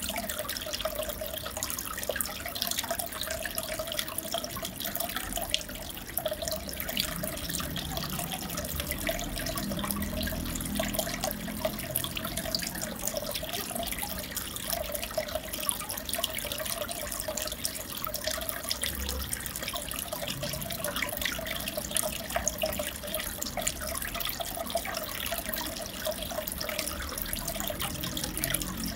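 Aquarium water running steadily: a continuous trickling, bubbling wash with fine crackling ticks and a wavering mid-pitched gurgle.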